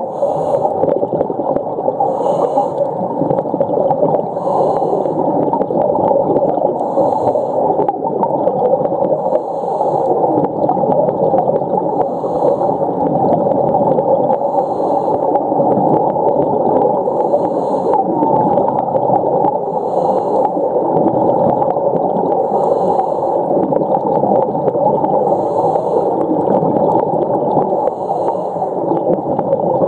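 Humpback whale song heard underwater as a dense, steady whining hum, with faint high pulses recurring every two to three seconds.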